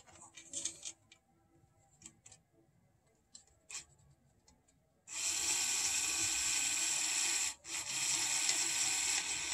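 A few faint clicks as the power wires are handled, then about five seconds in the small electric motor of a Franklin Mint HO-scale New York Central Hudson locomotive starts running with a steady whir, its drivers spinning free with no load. It cuts out for a moment and starts again.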